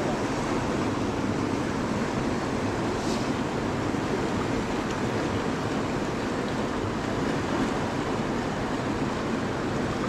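River water rushing steadily, a constant hiss and rumble of flowing current.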